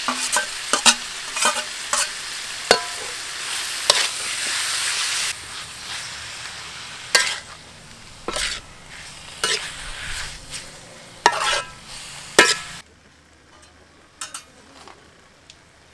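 Sliced beef stir-frying in a hot metal wok: steady sizzling with many sharp clacks and scrapes of the spatula against the pan. The sizzle swells about four seconds in and drops away abruptly near the end, leaving a few faint taps.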